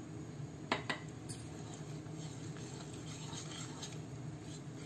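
Wire whisk stirring flour and buttermilk into cake batter in a plastic bowl, with a few light clicks of the whisk about a second in.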